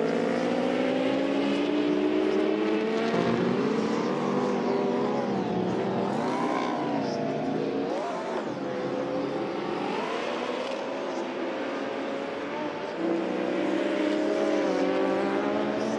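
Racing motorcycle engines at high revs, their pitch rising and falling as the bikes accelerate, change gear and pass, with a jump in level about three-quarters of the way through.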